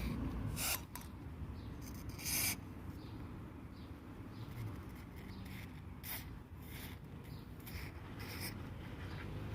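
Aerosol spray grease hissing out of its straw in short bursts, applied a little at a time to a car door's hinge parts; about five brief squirts, the longest about two seconds in, over a low background rumble.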